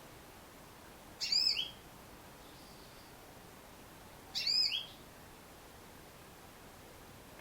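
Female yellow-fronted canary (Mozambique singing finch) giving two short, high arched calls about three seconds apart.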